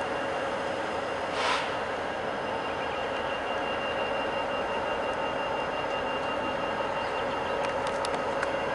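Freight train's lead diesel locomotives rolling slowly past, a steady running sound with a short hiss about a second and a half in and a few light clicks near the end.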